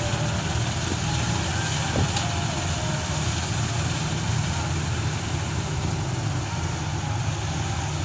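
Kartar combine harvester running steadily as it cuts and threshes wheat: a constant low engine and machinery drone, with one light click about two seconds in.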